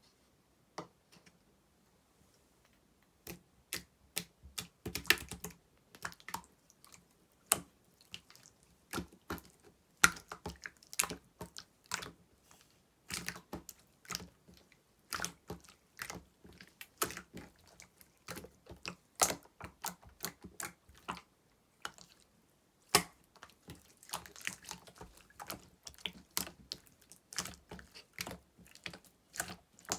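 Slime being squeezed and folded by hand, giving off irregular sticky clicks and pops, with short wetter squishing stretches. The clicking starts about three seconds in.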